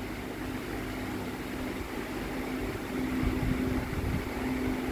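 Steady low hum over an even background hiss, like room noise from a fan or air conditioner.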